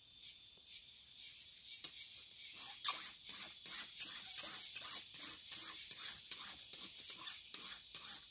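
Hand tool scraping and digging into dry soil in quick repeated strokes, about three a second, louder and more regular from a couple of seconds in.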